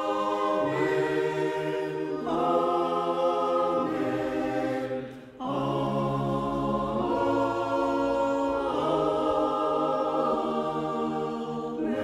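A choir sings a slow Amen response in long, held chords that change every second or two, with a short break for breath about five seconds in.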